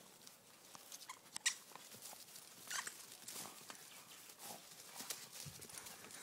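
Two dogs playing tug of war: irregular light clicks and scuffles of claws and paws, with a few brief faint squeaks.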